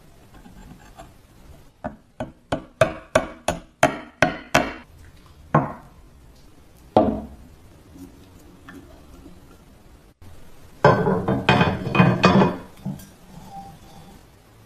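Metal tapping and clinking in a workshop: a run of about ten sharp ringing strikes at roughly three a second, two single knocks, then a quick jangle of metal clinks near the end.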